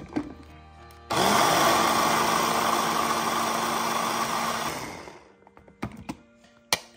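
Cuisinart electric chopper motor running in a short pulse of about four seconds, blending tomato and tomato paste into a purée. It starts suddenly about a second in, spins up and runs steadily, then winds down; a few light clicks and knocks follow near the end.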